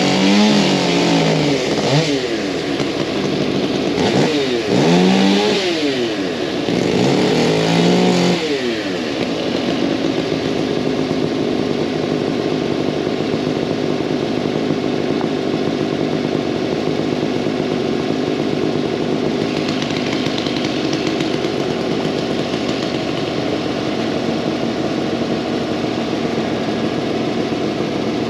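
An engine revving up and down several times, then running steadily.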